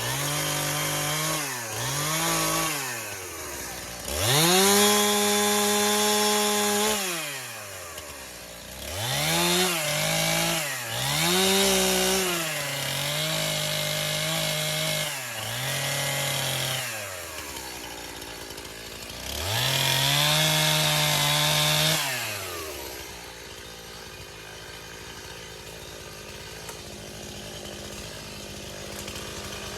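STIHL MS 291 two-stroke chainsaw cutting branches. It is revved up to full speed again and again, each cut held for one to three seconds before the engine drops back toward idle, about seven times. After about 23 seconds the cutting stops, leaving a lower steady sound.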